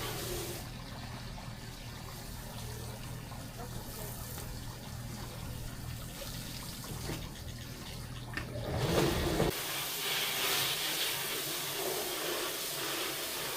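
Water running and splashing over a steady low hum; the hum cuts out about nine and a half seconds in, leaving a brighter hiss of water.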